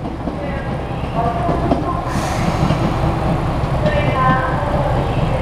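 JR Shikoku 8000 series electric train departing and running away, a steady low rumble from its wheels and running gear on the rails.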